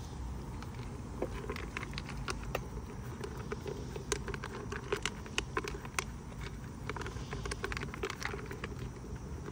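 A deer buck eating from a plastic bucket at close range, chewing and crunching its feed in a run of irregular sharp clicks.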